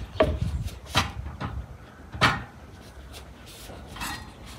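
Metal samovar being set down on a wooden stump and handled at its top: a few separate knocks and clanks, the loudest a little over two seconds in.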